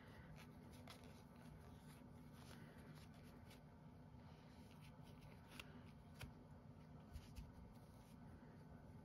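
Near silence: faint rustling of yarn and a few soft clicks from a crochet hook working stitches, over a low steady hum.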